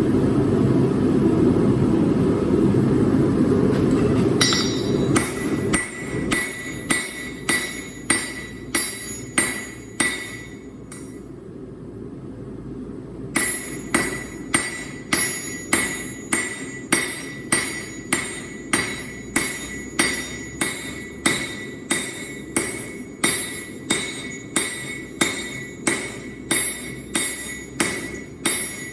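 Hammer forging Damascus steel on an anvil: steady, evenly spaced blows about one and a half a second, each with a bright metallic ring. The blows stop for about three seconds a little before halfway, then resume. A loud steady roar fills the first four seconds before the hammering starts.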